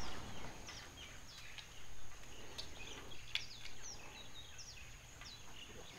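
Birds chirping: many short, high calls, most sliding downward in pitch, scattered throughout, over a faint steady high whine and low outdoor rumble.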